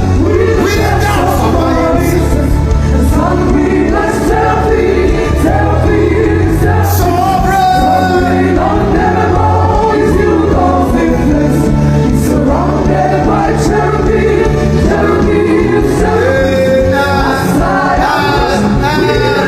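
Gospel worship music: a group of voices singing over steady bass notes, without a break.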